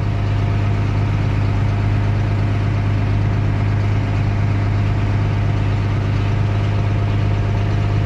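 Large diesel farm-machinery engine running at a steady speed: a deep, even drone with no rise or fall in pitch.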